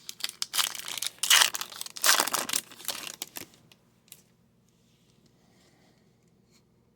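Foil wrapper of a hockey card pack crinkling and tearing as it is opened, loudest in two rushes about one and two seconds in, then dying away after about three and a half seconds.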